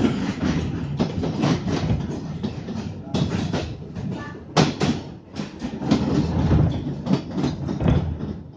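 Wheels of a London Underground 1995 Stock train clattering over rail joints and pointwork, heard from inside the carriage: an irregular run of sharp knocks over a low running rumble, with a couple of louder bangs about three and four and a half seconds in.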